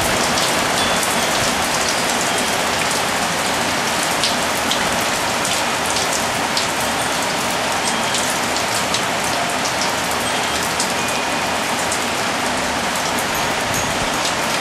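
Steady heavy rain shower, with many drops pattering on the balcony surfaces. A few faint, brief wind chime tones ring out now and then.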